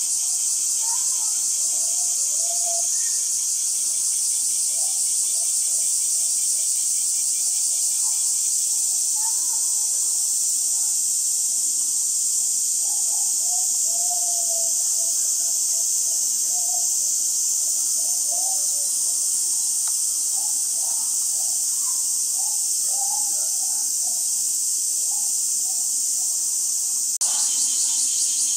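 Steady, high-pitched insect chorus buzzing continuously, with faint distant voices underneath.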